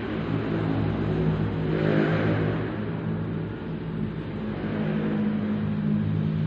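A steady, low engine hum, like a motor vehicle running nearby, with a slight swell about two seconds in.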